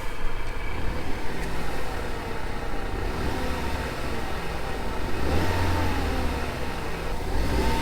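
2014 Ford Fusion's EcoBoost turbocharged four-cylinder engine running at idle, then revved briefly twice in the second half, the pitch rising and falling each time. These are its first revs after it has sat unstarted for months.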